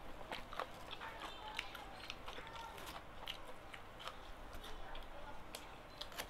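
Quiet eating sounds: gado-gado picked apart by hand from a paper wrapping and chewed, with scattered small clicks, crinkles and mouth sounds.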